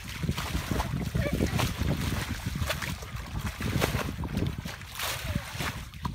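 Muddy water bailed by hand with a plastic bucket and a metal basin and thrown out in repeated splashes, about one every second, with wind rumbling on the microphone.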